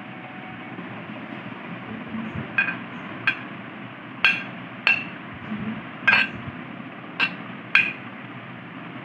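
Metal spoon clinking against a plate as it scoops up rice and lentils: about seven sharp, ringing clinks, irregularly spaced, over a steady background hiss.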